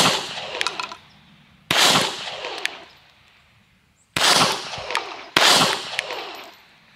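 Kahr CW9 9mm pistol fired four times, shots spaced a second or two apart, each ringing out for about a second afterwards. The last two shots come closest together.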